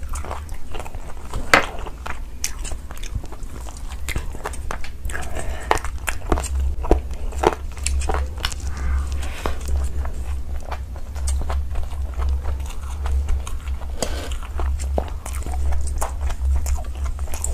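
Close-miked eating sounds: biting and chewing saucy chicken and fried rice, with many sharp wet smacks and crunches scattered irregularly, over a steady low hum.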